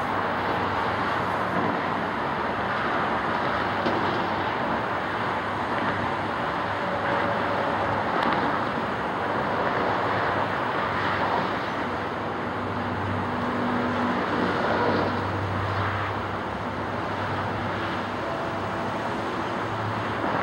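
Steady urban road-traffic noise, with the low hum of passing vehicles swelling now and then, about two-thirds of the way in and again near the end.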